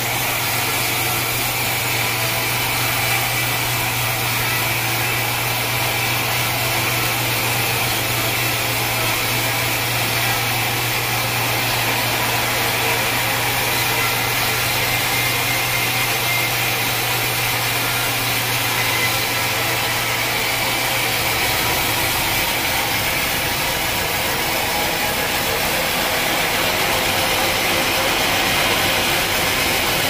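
Band sawmill running steadily, its band blade sawing lengthwise through a dense acacia log, with a high hiss over the machine noise. A low hum in the machine noise drops out about two-thirds of the way through.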